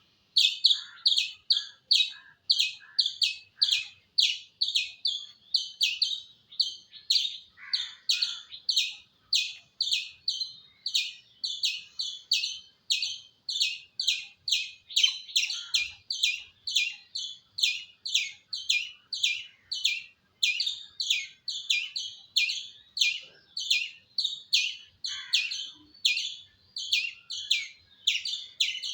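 Indian striped palm squirrel calling over and over: sharp, high chirps at about two to three a second, keeping up an unbroken rhythm.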